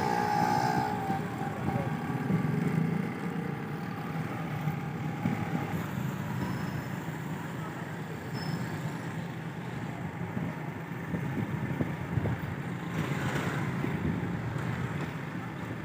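City street traffic noise: a steady low engine rumble with the hiss of passing vehicles.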